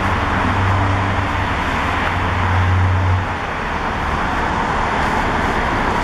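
Steady car and traffic noise: a car engine running close by, its deep hum easing off about three seconds in, over a constant road noise.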